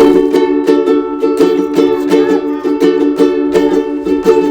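Strummed chords on a plucked string instrument at an even beat, the instrumental introduction to a school song, just before the singing begins.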